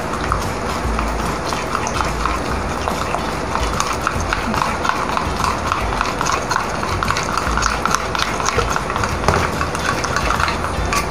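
Metal spoon stirring a thin flour-and-water batter in a ceramic bowl, clinking and scraping against the bowl in a quick, uneven run of light ticks, over a steady background hiss.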